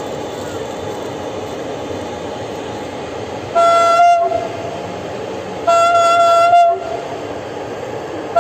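Two train horn blasts, each about a second long and about two seconds apart, each one steady tone, over the steady running noise of an electric locomotive hauling passenger coaches.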